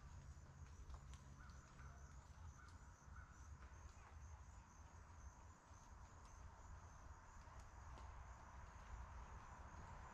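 Faint roadside ambience: a low rumble, a crow cawing a few times in the distance early on, and the tyre hiss of an approaching car growing near the end.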